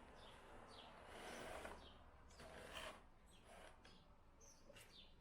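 Faint rustling of a model car's packaging being handled, with a few faint high chirps.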